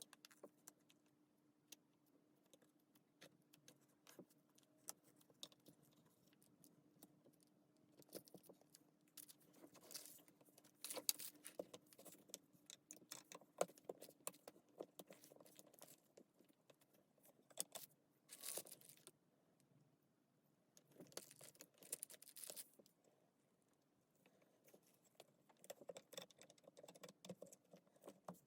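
Faint, irregular clinks and rattles of small metal parts and tools being handled, with a few louder clusters of clinking partway through.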